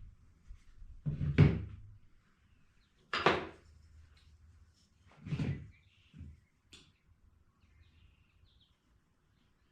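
Brad nails being driven into the wooden pieces of a bird feeder: three sharp thuds about two seconds apart, then a couple of lighter knocks.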